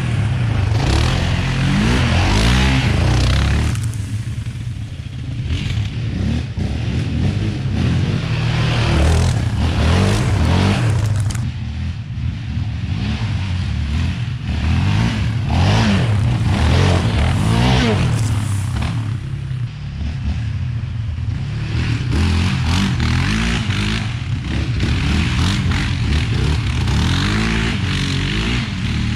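Yamaha Raptor 700R ATV's single-cylinder four-stroke engine, fitted with a Monster aftermarket exhaust, revving up and easing off again and again while riding a dirt trail, its pitch rising and falling several times.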